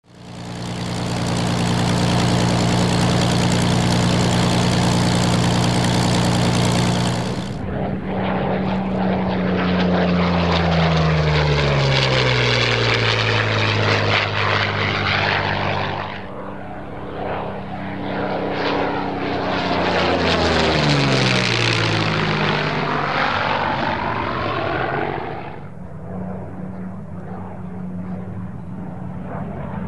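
Yakovlev Yak-3 fighter's V-12 piston engine and propeller in flight. The engine note is steady for about the first seven seconds. It then makes two fly-bys, the pitch dropping sharply each time the plane passes. It fades to a quieter, more distant drone near the end.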